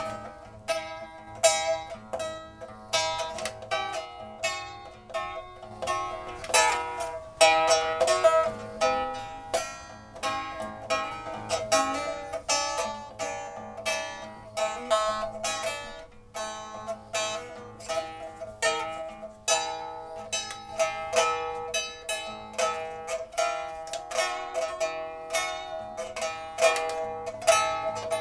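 Plucked zither music: a steady stream of quick plucked notes, each ringing and fading, with no other instruments standing out.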